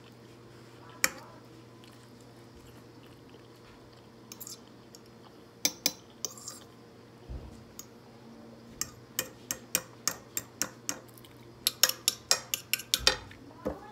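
Fork clicking and scraping against a plate while eating: a single click about a second in, a few more around the middle, then a quick run of clicks in the last few seconds, over a faint steady low hum.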